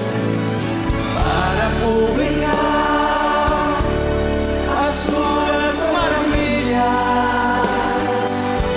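Live Christian worship music: a band with drums and electric guitar playing under singing voices.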